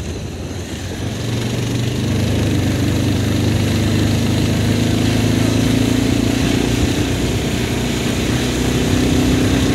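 A vehicle's engine running steadily as it drives along, a low hum that grows louder about two seconds in.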